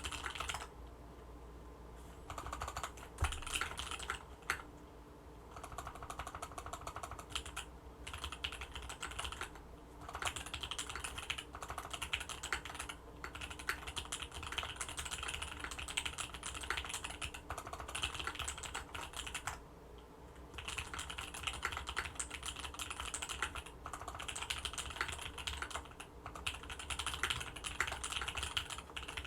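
Fast continuous typing on an Orion V3 custom mechanical keyboard with Tealios linear switches and an FR4 plate: a dense patter of key clicks in runs, broken by brief pauses a few times.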